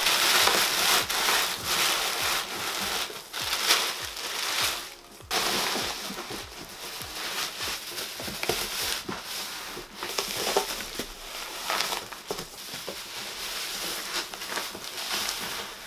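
Plastic bubble wrap crinkling and rustling as it is handled and pressed down into a cardboard box, with a brief lull about five seconds in.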